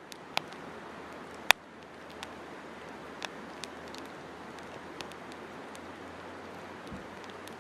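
Wood campfire burning: a steady hiss with scattered crackles and sharp pops, one much louder pop about a second and a half in.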